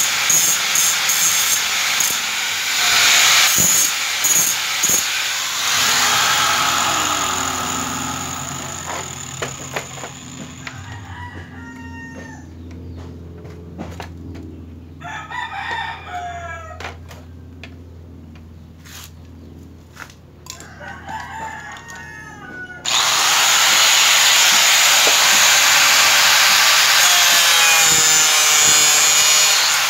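Electric angle grinder cutting, then spinning down about six seconds in. In the quieter stretch a rooster crows three times, then the grinder is switched on again suddenly and runs loud and steady as it cuts into a plastic car grille.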